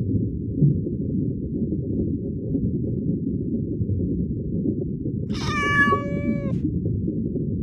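A cat meows once about five seconds in, a drawn-out call of a little over a second whose pitch sags slightly at the end, over a steady low rumble.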